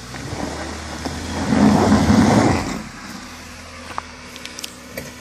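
Jeep Grand Cherokee WJ engine running on a steep dirt-and-rock climb, surging loudly for about a second and a half as the tyres spin in loose dirt, then dropping back to a low steady run. A few small ticks follow near the end.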